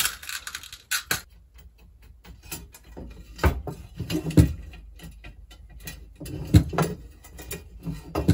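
Bicycle spokes clicking and tapping against the hub and rim as they are threaded in while lacing a wheel, with light irregular ticks and several heavier knocks.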